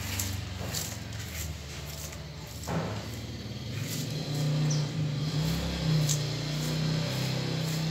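Repeated short rustling sweeps of a paintbrush's bristles over dry leaf litter and potting soil, over a steady low drone.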